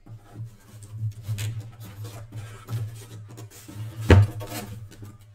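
Sports cards and their plastic holders being handled on a tabletop: light clicks and rustles, with one sharper knock about four seconds in, over a steady low hum.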